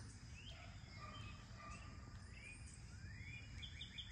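Faint outdoor ambience with wild birds chirping: scattered short rising chirps, then near the end a quick run of repeated notes, about six a second.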